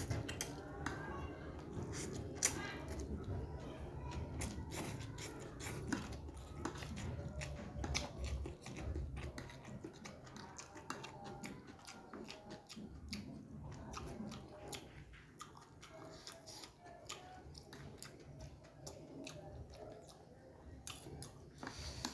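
Close-up mouth sounds of eating fried instant noodles: slurping and steady wet chewing, with many short clicks and smacks. A metal fork and spoon scrape and tap among the noodles on a plastic tray.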